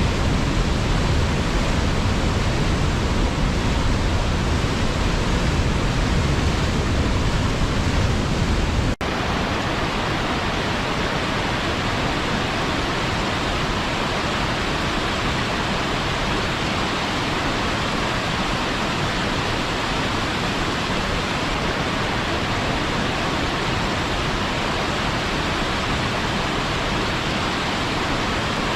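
Waterfall rushing steadily. About nine seconds in the sound cuts abruptly to a slightly quieter, less deep rush.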